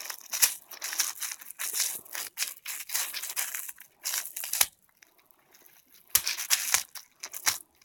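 A cat toy being chewed and torn apart by a pet, with crinkling and tearing noises in irregular bursts and sharp clicks, pausing for about a second and a half midway.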